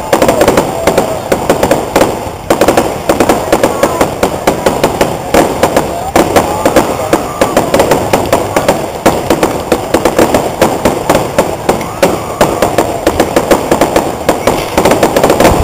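Fireworks grand finale: a continuous rapid barrage of aerial shell bursts and crackling, many bangs a second with no break.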